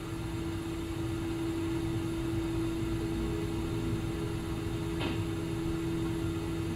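Quiet ambient background music holding one sustained drone note, over a low steady hum, with one brief soft noise about five seconds in.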